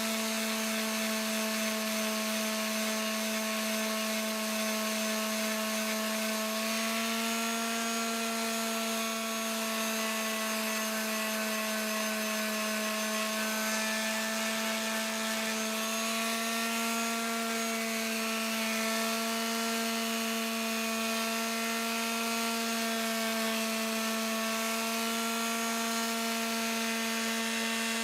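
Electric sander fitted with 120-grit paper running steadily on wood: a steady motor hum under the hiss of the abrasive, the hum shifting slightly now and then.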